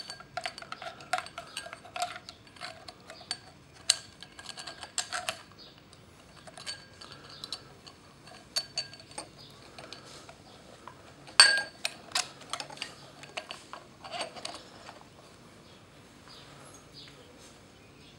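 Metal speedometer housing and gauge being handled and fitted together: scattered clicks and clinks of metal on metal, some ringing briefly, the loudest a single clink about eleven seconds in. The handling is quieter near the end.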